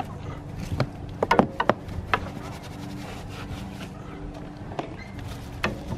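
Scrub brush being worked against a snowmobile's front suspension and dipped in a plastic wash bucket: a cluster of sharp knocks and clatters in the first two seconds and a couple more near the end, over a low steady hum.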